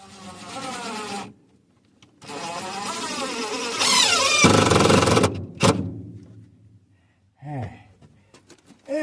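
A handheld power tool's motor runs in spurts at changing speed, with a short noisy stretch under load about five seconds in, a click, and a falling whine as it winds down near the end.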